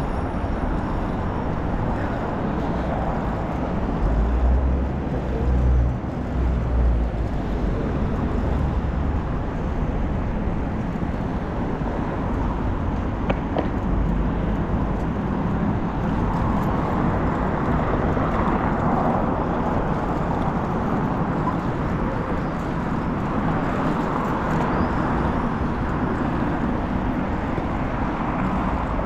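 Steady city street traffic heard from a moving bicycle: a continuous rumble and hiss of passing cars, with a few louder low surges several seconds in.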